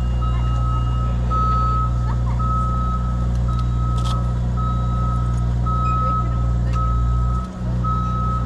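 Electronic warning beeper sounding one steady high tone that repeats about once a second, over a loud, steady low rumble.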